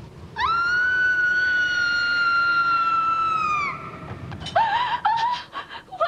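A long, high-pitched cry that rises at the start, holds steady for about three seconds, then falls away. About a second later a voice breaks into short, wavering moaning sounds.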